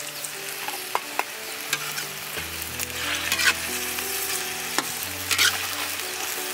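Turtle meat frying and sizzling in a pan as it is stirred, with a steady hiss and a few sharp clicks of the utensil.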